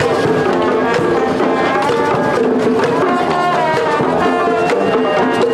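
Parade band music: drums beating steadily under brass horns playing a tune.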